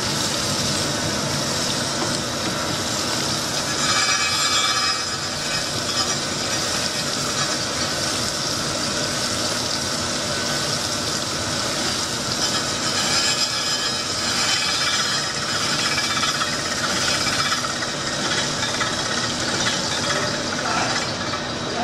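Crankshaft grinding machine grinding a connecting-rod journal under coolant: the machine runs steadily and the grinding noise grows louder for spells about four seconds in and again from about thirteen to seventeen seconds.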